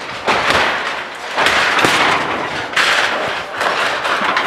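Demolition noise: a run of loud crashes and rattles, about four sudden ones, each dying away over a second or so.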